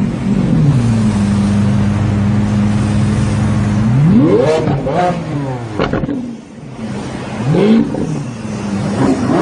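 Lamborghini Aventador's V12 idling steadily, then revved hard several times from about four seconds in, each rev rising sharply in pitch and dropping back.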